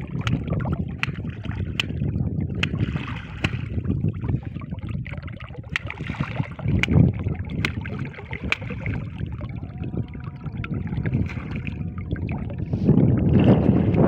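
Wind rumbling on the microphone, with sharp clicks or knocks roughly once a second through the first two-thirds and louder buffeting near the end.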